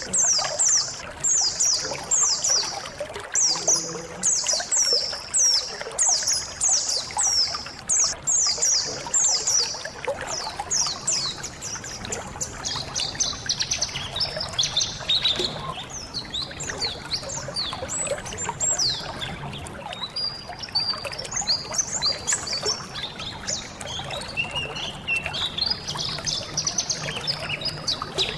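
A colony of white-eyes (pleci) chirping and twittering over trickling water. In the first half the calls are quick, high, downward-sweeping chirps repeated several times a second. Later they become a looser, more varied twitter.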